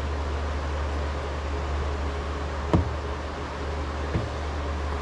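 Steady low machine hum with an even hiss, like a fan running in a workshop. A sharp tap sounds a little past halfway and a lighter knock comes near the end, from small items being handled on the workbench.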